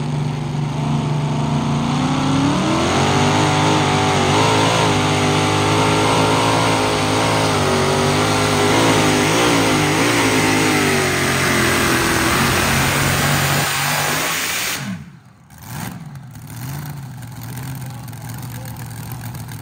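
Pulling vehicle's engine running hard under load. Its pitch climbs in the first few seconds, wavers up and down as it strains, then sinks as the pull winds down. About fifteen seconds in the loud engine sound drops away abruptly, and a quieter engine sound carries on.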